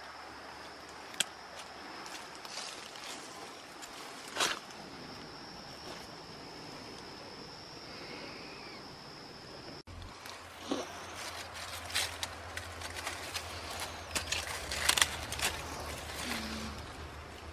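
Outdoor garden sound. For the first half a steady high insect trill runs with a few sharp clicks. After a cut there is a low rumble and a string of rustles and clicks from hands and a pocket knife working among flower stems close to the microphone.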